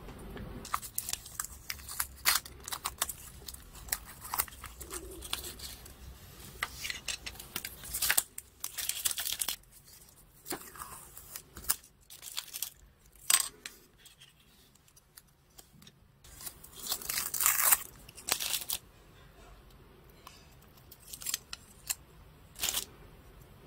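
Small plastic model-kit parts handled and fitted together: an irregular run of sharp plastic clicks and short rasping scrapes, with denser, louder spells of scraping about a third of the way in and again about three-quarters through.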